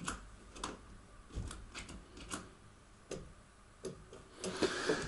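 Faint, irregular clicks and taps of the hazard-light switch being pressed on a Trabant 601's dashboard, with a short rustle near the end. No steady flasher-relay ticking follows: the hazard lights are not working.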